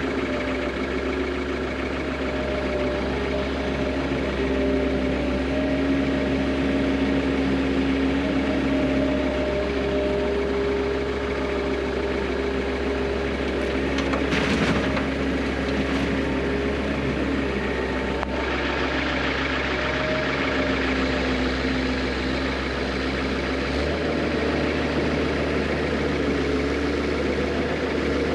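A vehicle engine running steadily, its pitch shifting up and down a little as the revs change, with a brief clatter about halfway through.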